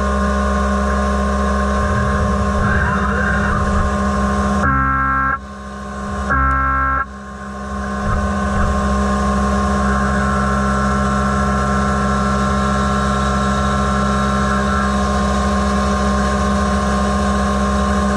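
CNC mill's face mill cutting an aluminium block under minimum-quantity lubrication: a steady high whine of the cutter teeth over the spindle hum, cutting out twice for a moment about five and seven seconds in.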